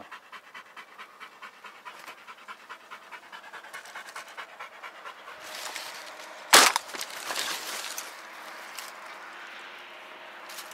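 A hunting dog panting fast, about four pants a second. Then a single shotgun shot about six and a half seconds in, the loudest sound, with a short ringing tail after it.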